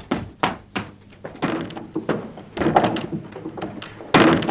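A heavy machine being bumped against a shed door: a string of irregular thuds and knocks, with the loudest bang near the end.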